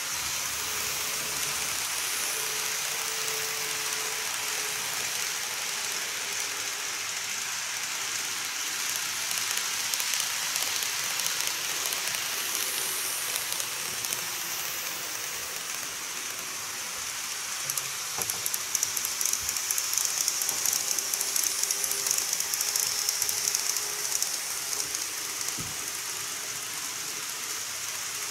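N-gauge model trains running on the track: a steady rolling hiss of wheels and motors, with rapid clicking getting louder about two-thirds of the way through.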